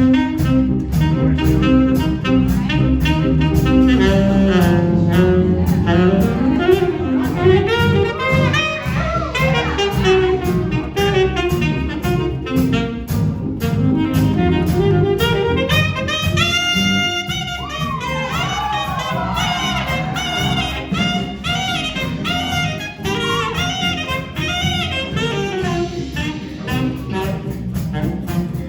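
School jazz band playing a big-band jazz chart, saxophone out front over brass and walking bass, with a held high note and sliding pitch bends about two-thirds of the way through.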